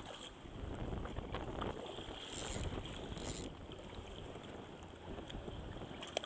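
Choppy water sloshing and lapping close to the microphone, with wind noise and two short hisses a little past the middle.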